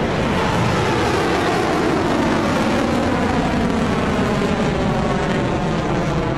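Rocket Lab Electron rocket's nine Rutherford first-stage engines firing just after liftoff: a loud, steady rush of rocket exhaust noise as the rocket climbs.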